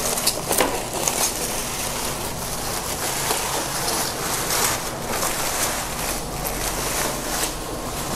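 Plastic bag crinkling and rustling without a break as a flat-screen TV is pulled out of it by hand.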